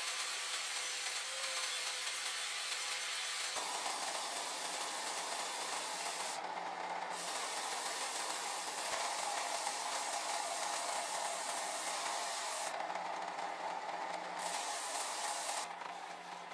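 An angle grinder with a sanding disc grinding a wooden knife handle, its motor giving a steady whine. About three and a half seconds in this gives way to a belt sander abrading the wooden handle, a steady rasping that thins out briefly twice.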